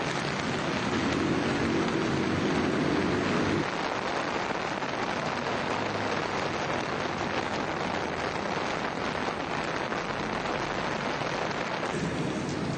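Heavy rain falling steadily, an even dense noise, with a low pitched sound under it for the first three and a half seconds.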